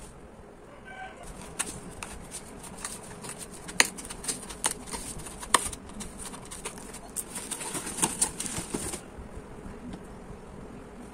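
Cardboard mailer and plastic packaging rustling and crinkling as a parcel is unwrapped by hand, with a run of sharp crackles and rips. The handling stops about nine seconds in.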